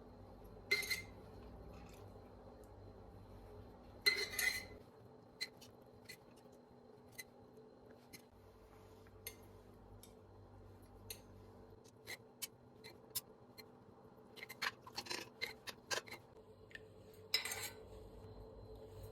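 Kitchen handling sounds: light taps and clinks of utensils, dishes and glass, with a few louder clatters about a second in, about four seconds in, and near the end.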